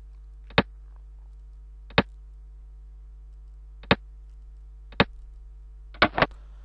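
Sharp single clicks as xiangqi pieces are moved on an on-screen board, one every second or two, then three quick clicks near the end. A faint steady hum runs underneath.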